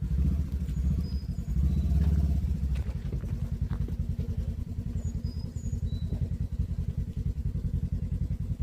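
Off-road vehicle engine running with a steady low pulse, louder twice in the first three seconds as the throttle is opened.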